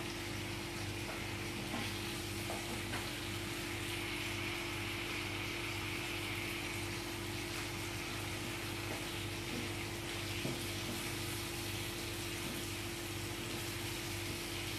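Cauliflower, potato and tomato frying in a nonstick pan with a steady sizzle, stirred now and then with a wooden spatula that gives a few faint taps and scrapes against the pan. A steady low hum runs underneath.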